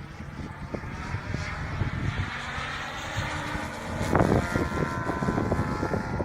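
Desert Aircraft DA-70 twin-cylinder two-stroke petrol engine of a large aerobatic RC plane running in flight, its propeller drone rising slightly in pitch and getting louder about four seconds in. Wind buffets the microphone underneath.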